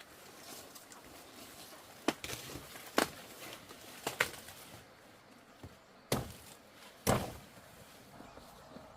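Five sharp chopping strikes at uneven spacing of about a second, the last two heavier with a duller thud.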